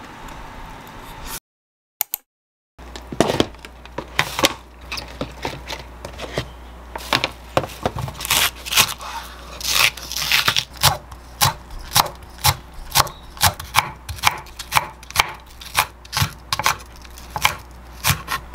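Kitchen knife cutting a Korean green onion (daepa) on a wooden cutting board: scattered single cuts at first, then steady chopping at about two to three strokes a second.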